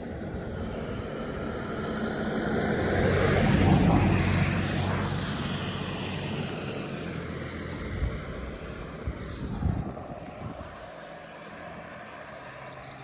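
An engine passing by: a low hum that grows louder to a peak about four seconds in, then slowly fades away, dropping in pitch as it goes. A couple of short knocks near the end.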